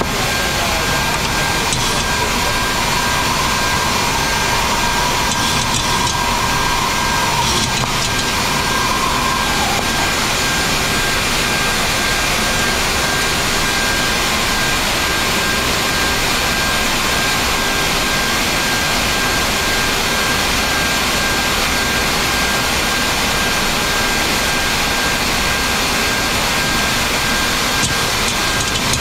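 Steady flight-deck noise of a Boeing 737 MAX in the climb: a loud, even rush of air and engine noise that does not change, with a faint higher tone held through about the first ten seconds.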